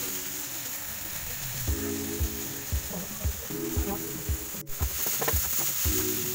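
Crumbled tofu sizzling in oil in a nonstick frying pan while a spatula stirs and scrapes it, with a few quick spatula clicks near the end. Background music with sustained chords and a steady beat plays underneath.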